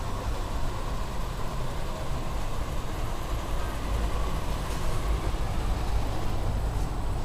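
Steady low rumble with a hiss over it, even throughout, with no distinct events.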